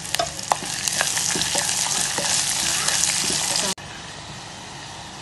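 Chopped onions sizzling in hot oil in a clay pot as they fry toward light brown, a wooden spatula stirring them with scattered sharp taps against the pot. A little over three and a half seconds in the sound drops suddenly and the sizzling carries on more quietly.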